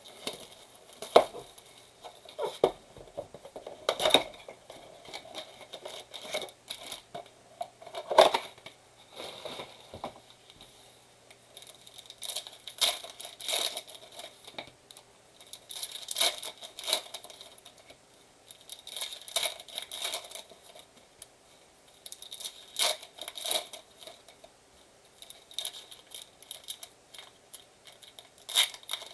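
Blaster box of trading cards being opened and its foil packs torn open by hand: irregular crinkling and tearing, with sharper cracks about one, four and eight seconds in.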